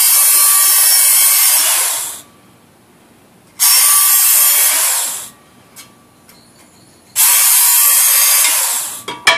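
Small handheld electric belt sharpener grinding the edge of a steel shovel blade: three loud passes of hissing belt-on-steel, the first about two seconds long, then a shorter one and a third, with quiet gaps between as the trigger is released. A knock right at the end.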